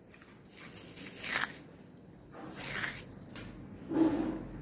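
Crisp deep-fried onion pakoda crunching and crackling as it is crumbled in the palm, in three separate crunches. The crackle is the sign that the fritters are fried crisp.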